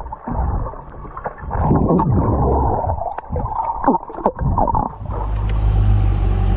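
Muffled water sloshing and splashing, heard as if through a waterproof camera housing. About five seconds in it cuts to a vehicle engine running with a steady low drone.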